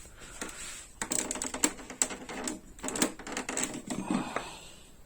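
A rapid series of small clicks and clatters, like hard kitchen items being handled and set down on a counter, from about a second in until near the end.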